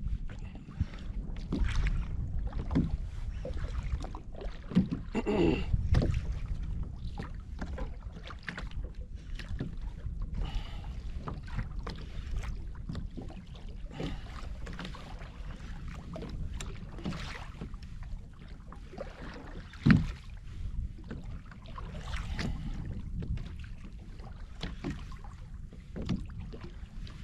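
Sea water sloshing and slapping against a kayak hull, under a steady low rumble of wind on the microphone. Scattered knocks and clicks run through it, with a brief wavering tone about five seconds in and one sharper, louder knock about twenty seconds in.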